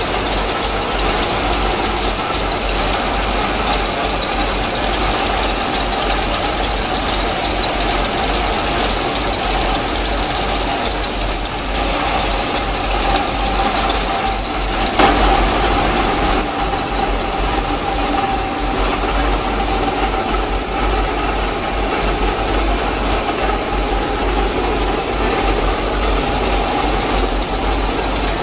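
Stork Protecon / Townsend sausage co-extrusion line running: a steady mechanical hum of motors and conveyors with a constant whine in it. A single sharp click about halfway through.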